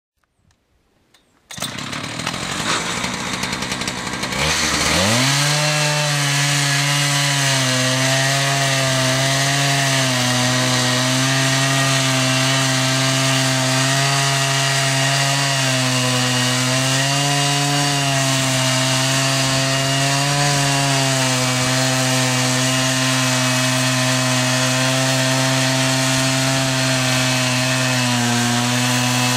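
Homemade Procut mobile sawmill's gasoline engine revving up about five seconds in, then running steadily as the saw cuts through a cedar log, its pitch dipping slightly now and then under the load of the cut.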